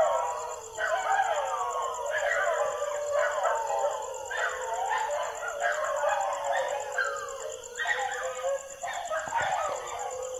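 Many animals calling at night, overlapping rising and falling calls that start and stop irregularly, over a steady, evenly pulsing high insect trill.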